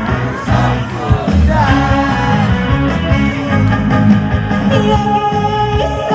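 Live song performance: a female singer's amplified voice, with held notes, over a band backing track with a steady beat.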